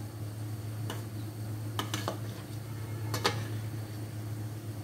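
Metal spatula knocking and scraping against a stainless steel steamer pan while chicken pieces are turned: a few sharp clinks over a steady low hum.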